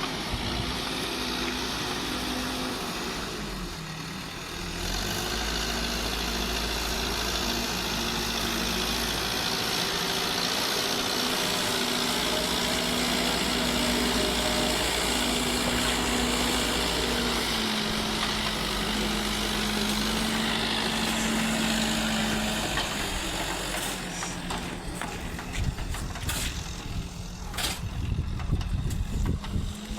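Diesel engine of a JCB backhoe loader running, its speed dropping and rising a few times as the machine works. Near the end the engine sound fades and a string of irregular knocks and clatter follows.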